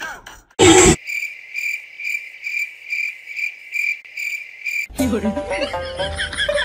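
A brief loud noise, then cricket chirps at about two a second over otherwise empty sound: the comic 'crickets' sound effect. Music comes back in near the end.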